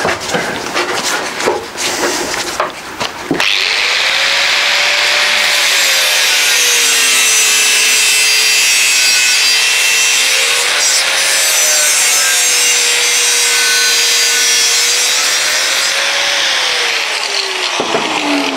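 Knocks and clatter of a steel tube being handled, then about three and a half seconds in an angle grinder spins up and grinds steel square tube, its motor whine sagging and recovering under load over the hiss of grinding. Near the end it is lifted off and winds down, the whine falling in pitch.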